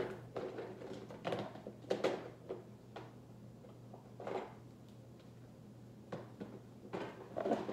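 Scattered light knocks and rustles of plastic toy animals being handled and knocked together while the next one is picked out, over a steady low hum.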